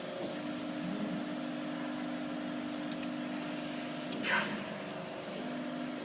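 Hydraulic CNC press brake running with a steady mechanical hum. About four seconds in, a short burst of noise is followed by a brief high hiss, then the hum carries on.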